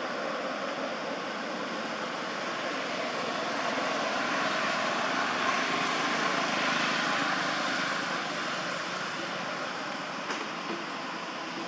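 Steady rushing outdoor background noise that swells a little midway, with a faint click or two near the end.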